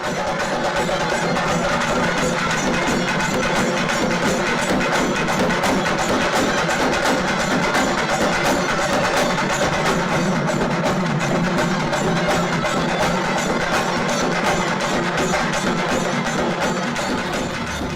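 Temple ritual music accompanying a trance dance: fast, steady drumming with ringing bell-like tones under it.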